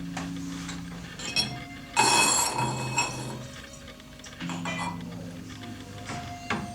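Yixing clay teapot and ceramic teaware clinking: a handful of light taps, the loudest about two seconds in ringing briefly.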